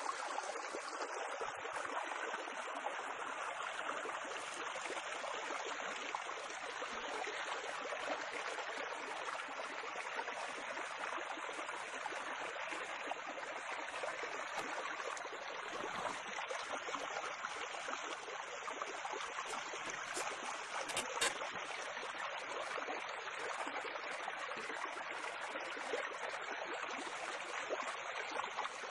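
A steady, even rushing noise like running water, holding at one level throughout, with a couple of faint clicks about two-thirds of the way through.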